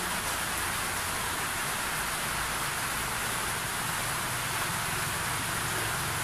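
Steady rain falling, a continuous even hiss with no breaks.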